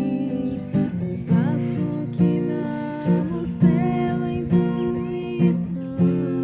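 Acoustic guitar music: chords strummed and plucked to a steady pulse, with some sliding notes.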